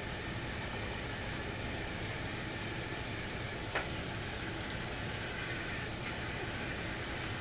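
Battery-powered TrackMaster toy train motors running steadily on the plastic track, with a single small click about four seconds in.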